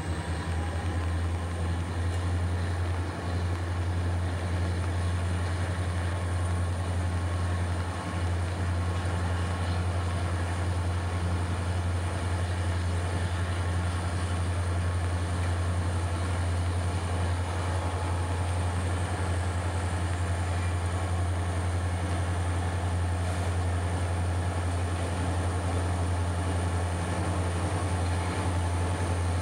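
Three EMD SD40 diesel-electric locomotives, each with a 16-cylinder two-stroke engine, working as they pull a loaded ore train away. Their engines make a steady low drone.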